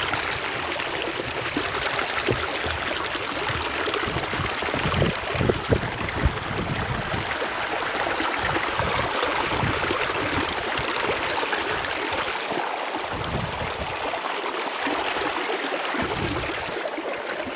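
Stream water rushing steadily, with irregular low rumbles underneath.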